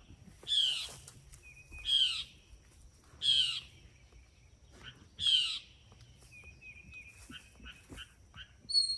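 A bird calling repeatedly outdoors: four loud, harsh calls, each falling in pitch, about a second and a half apart, followed by softer short chirps near the end, over a faint steady high whine.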